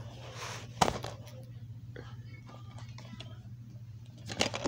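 Plastic DVD cases being handled: a sharp click about a second in, scattered small ticks and rubs, and a quick cluster of clatter near the end, over a steady low hum.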